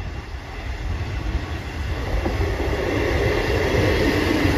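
A pair of Class 158 diesel multiple units running at the platform, the train noise growing louder from about halfway through.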